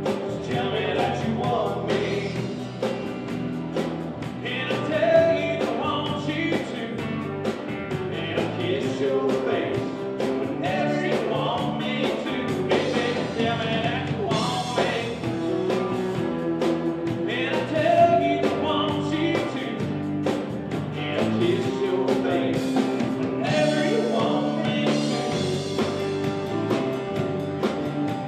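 A live country band playing, with electric and acoustic guitars over a drum kit.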